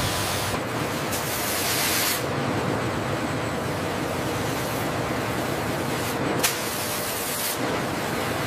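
Steady running noise of factory machinery, with two louder hisses, one about half a second in lasting under two seconds and another about six and a half seconds in that opens with a sharp click.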